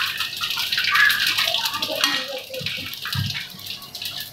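Mustard oil sizzling in an iron kadai as spices fry in it, with a steady hiss and many sharp crackles, and a spatula stirring and scraping the pan. This is the tempering stage, spices frying in hot oil.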